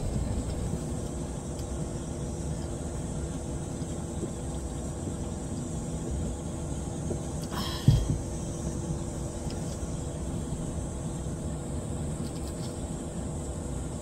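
Air conditioner running with a steady hum and a couple of steady tones. One short knock about eight seconds in.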